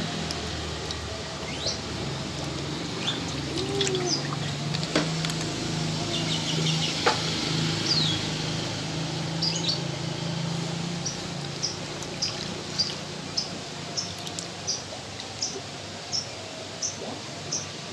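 Steady sound of running water at a fish pond, with small birds chirping; from about eleven seconds in, one bird repeats a short high chirp about twice a second.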